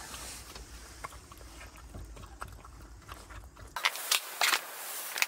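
A small dog eating from a bowl: faint, soft licking and chewing clicks. About four seconds in, louder crinkling and rustling as a plastic kimchi pouch is handled.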